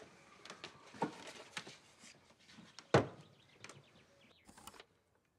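Clicks and knocks of someone moving about and handling things at a kitchen table, with one loud thump about three seconds in. A short rustle follows, and then the sound cuts off abruptly.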